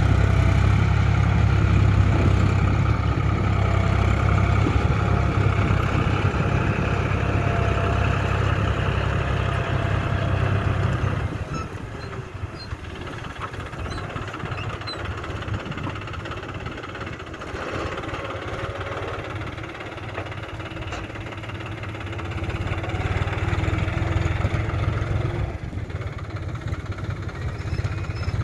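John Deere 5310 tractor's three-cylinder diesel engine running steadily while pulling a reversible mould-board plough through dry soil. The engine is loud for the first third or so, drops noticeably about eleven seconds in, and grows louder again near the end.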